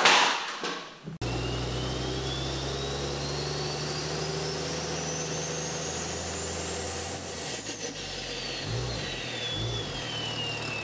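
Intro sound effect for an animated logo: a steady low mechanical drone with a thin whistle that climbs slowly for about six seconds, then slides back down. It cuts in sharply about a second in, after a thump has faded out.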